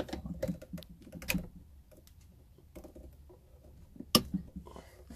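Small plastic clicks and taps as a tool works the plastic transport plug out of the air-intake port on an air compressor's cylinder head, before the air filter goes in. The sharpest click comes about four seconds in.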